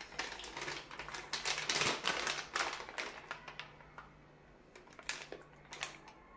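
Foil-lined plastic pouch crinkling and crackling as it is opened and handled. The crackling is densest in the first three seconds, then only a few scattered crackles.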